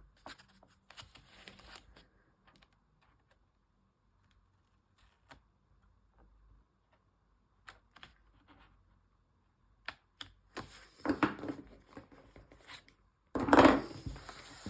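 Scissors snipping washi tape and paper, with small scattered clicks at first, then louder paper rustling and handling near the end.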